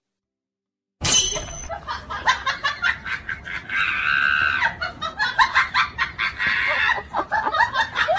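Silence for about a second, then people screaming and laughing loudly in quick bursts, with one long held scream about four seconds in.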